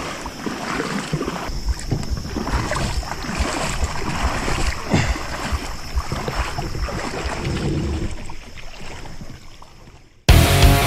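Creek water splashing and sloshing around a kayak as it is taken across a deep hole, with wind rumbling on the microphone. The sound fades away near the end, and rock music cuts in abruptly just before the close.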